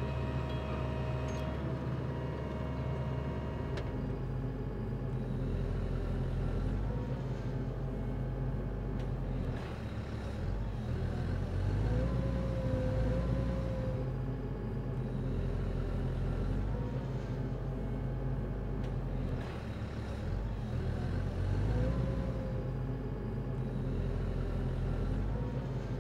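Geoprobe 8040DT drill rig's engine and hydraulics running steadily, the note gliding and swelling a little twice, near the middle and again near the end.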